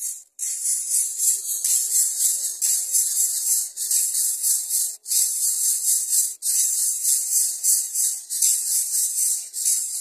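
Greater coucal nestlings making a loud, high, raspy hissing in rapid pulses, the begging noise of chicks gaping for food from a parent. It breaks off briefly a couple of times.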